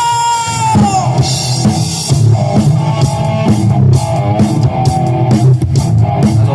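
Rock band playing loud: a held high note slides down and ends about a second in, then drum kit and electric guitar carry on with a driving instrumental riff.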